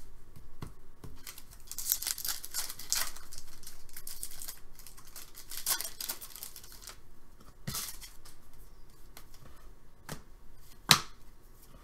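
A 2018-19 Upper Deck SP Authentic hockey card pack wrapper being crinkled and torn open, then the cards handled, with a few sharp taps; the loudest tap comes near the end.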